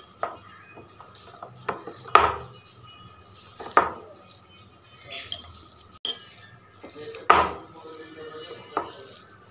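Hand mixing and squeezing mashed boiled potato with chopped onion, green chilli and coriander on a ceramic plate, with scattered knocks and clinks against the plate. The loudest knocks come about two seconds and about seven seconds in.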